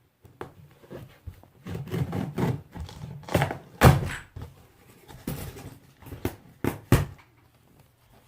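Irregular thuds, knocks and scraping of a cardboard box being handled and opened, with two heavier thumps about four and seven seconds in.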